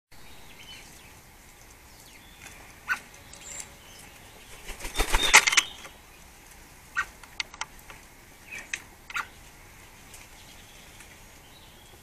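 Small garden birds at a wire-mesh peanut feeder: a burst of wing flapping about five seconds in, the loudest sound, with scattered short sharp taps and clicks before and after it.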